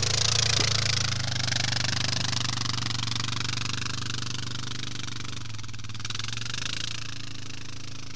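Quad bike engines: one idling steadily close by while another climbs a rocky track, its engine and hiss growing fainter as it pulls away.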